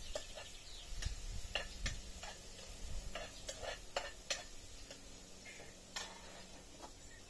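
Irregular light clicks and taps of kitchen utensils against a plate, a dozen or so scattered through the few seconds.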